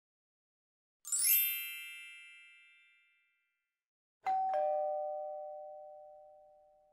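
Edited-in chime sound effects: a bright, high chime about a second in, then a two-note falling ding-dong, each note ringing out and fading slowly.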